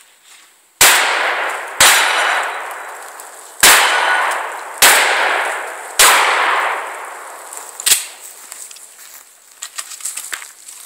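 Six gunshots over about seven seconds, each followed by a long echoing tail: the first from a pistol, the later ones from a shotgun fired at steel targets. Near the end, quieter scuffing and rustling as the shooter moves off.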